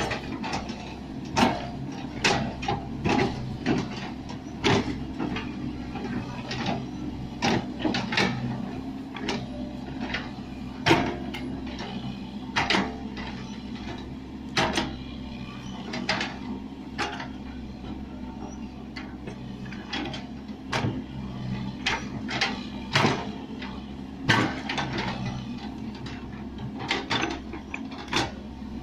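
Excavator working soil: the engine runs steadily underneath irregular sharp clanks and knocks from the machine's metal parts.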